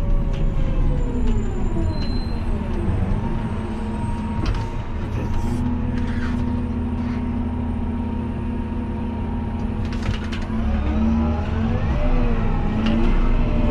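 Fendt 828 Vario tractor's six-cylinder diesel engine heard from inside the cab: its note falls as the tractor slows, runs steadily at low revs, then rises again as it pulls away near the end. A few short clicks sound over the engine.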